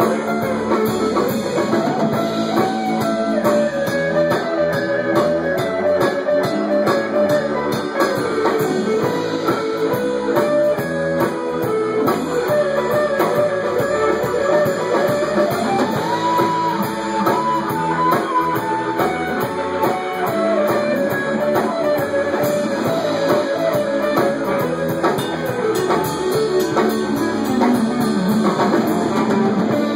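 Live band playing an instrumental section with guitars and drum kit under a wandering lead melody line.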